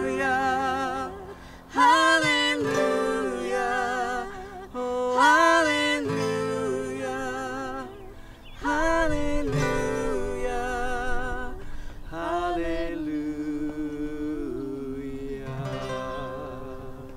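Worship music: acoustic guitar playing under a voice that sings long, wavering held notes with no clear words, a new phrase swelling in every few seconds.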